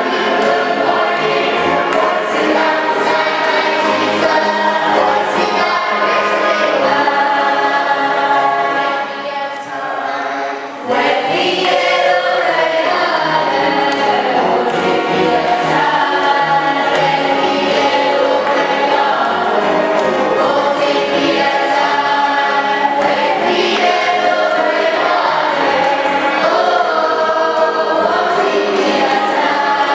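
A choir singing a gospel song, many voices together, with a brief drop between phrases about ten seconds in.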